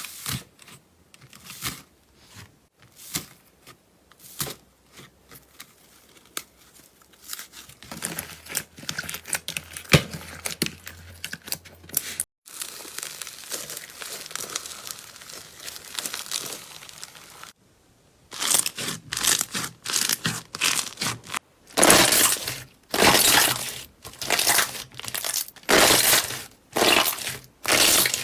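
Slime being pressed, stretched and squeezed by hand, crackling and popping. The sound comes in separate stretches: scattered clicks at first, then dense crackling, and near the end loud crunchy presses a little faster than one a second.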